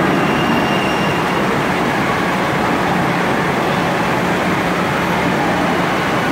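Steady, loud din of an indoor water park hall, a wash of water and crowd noise.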